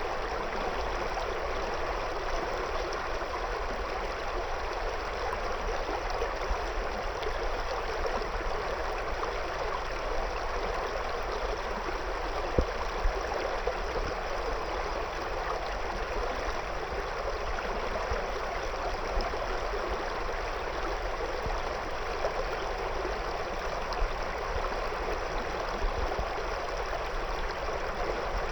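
River water flowing steadily over and around stones, a continuous rushing and babbling with occasional small splashes.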